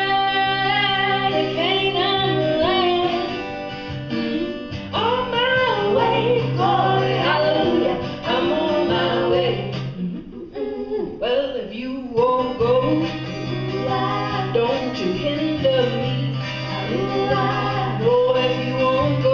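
Female vocal trio singing in close harmony, accompanied by a strummed acoustic guitar. About halfway through, the harmony thins out for a moment, then the full sound resumes.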